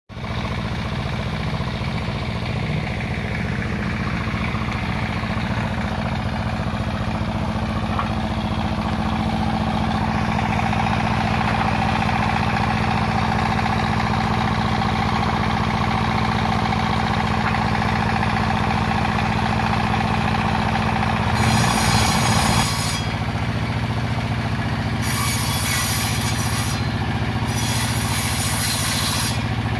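Engine-driven circular saw bench running steadily with a low, even drone. From about two-thirds of the way in, a harsh high-pitched cutting noise comes and goes in stretches of one to two seconds as the blade goes through waru wood.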